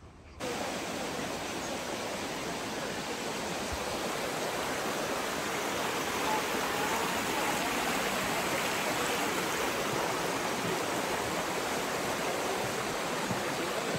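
Steady rush of a stream's flowing water, starting abruptly about half a second in.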